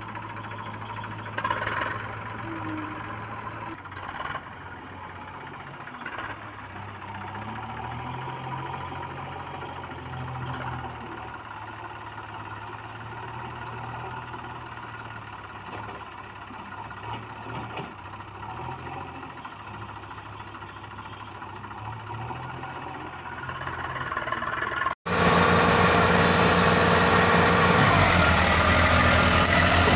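Diesel engines of a JCB 3DX backhoe loader and a tractor running, the pitch rising and falling as the loader revs to work its front bucket. About 25 seconds in, the sound cuts abruptly to a louder, closer tractor diesel engine as the Eicher tractor pulls a loaded trolley.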